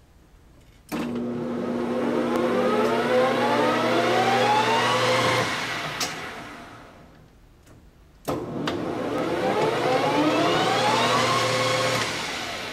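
High-speed metal lathe spindle started twice with the spindle lever. Each time a click is followed by a steady hum and a whine that rises in pitch as the chuck spins up. The whine then fades as the spindle is switched off and coasts to a stop, with another click as it stops.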